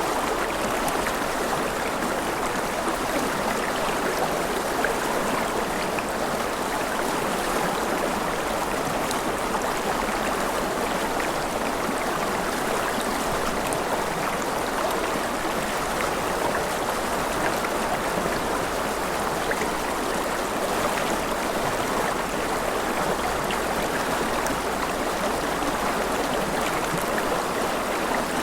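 Gentle rain falling steadily: an even, unbroken rush with faint scattered drop ticks.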